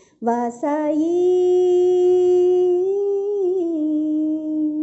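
A single voice singing a Tamil devotional song. It sings a few short notes, then holds one long note that lifts slightly partway through and settles back lower before fading out at the end.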